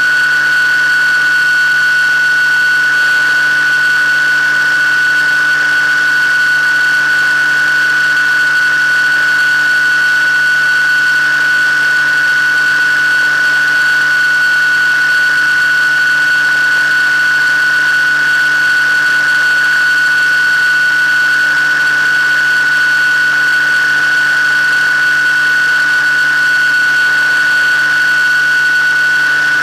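FPV model aircraft's motor and propeller, recorded by the onboard camera, giving a loud, steady whine at a constant pitch in level cruise.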